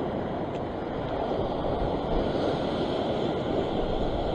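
Steady rush of ocean surf washing over a rock ledge, mixed with wind noise on the microphone.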